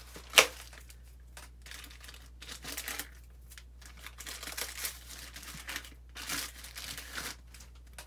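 Packaging being handled, crinkling and rustling in irregular bursts, with one sharp snap about half a second in.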